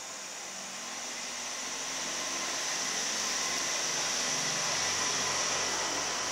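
A steady high-pitched hiss with no distinct events, growing louder over the first few seconds and then holding steady.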